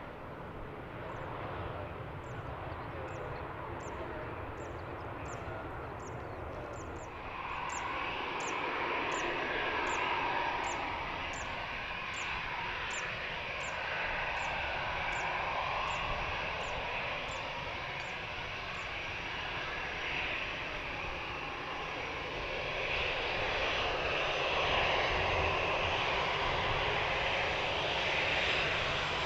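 Airbus A320-214's CFM56 turbofan engines running steadily, growing louder about seven seconds in and again near the end.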